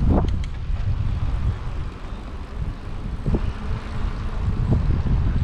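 Wind rumbling across the microphone of a moving camera, an uneven low rumble over a steady hiss, with a few light clicks about half a second in.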